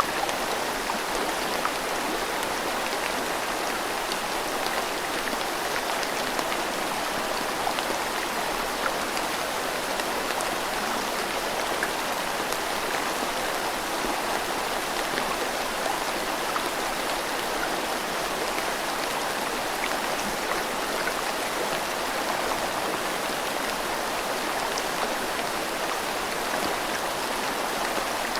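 Steady rain falling together with a rushing river, one even hiss with small scattered drop ticks and no change in level.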